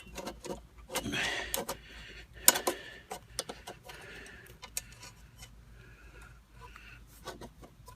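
Scattered clicks and light knocks of exhaust clamp and muffler mount hardware being handled and fitted, with one sharp click about two and a half seconds in.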